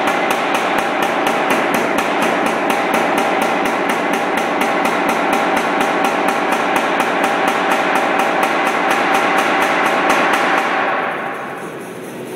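Anyang 55 lb self-contained air power hammer striking a hot 1.5-inch square bar between flat dies, in a rapid, steady run of blows over the machine's running motor. About a second before the end the blows stop and the hammer's motor runs on alone.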